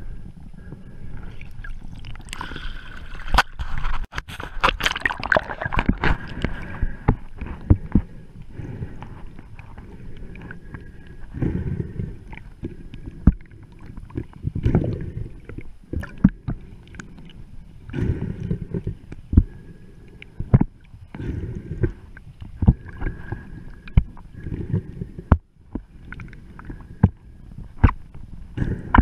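Water sloshing and gurgling, heard through a camera held underwater by a snorkeller. Many sharp clicks and taps run through it, with low muffled swells every couple of seconds.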